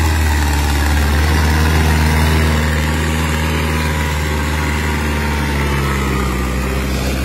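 Farmtrac tractor's diesel engine running steadily and loud under load, pulling a trailer heavily loaded with sugarcane.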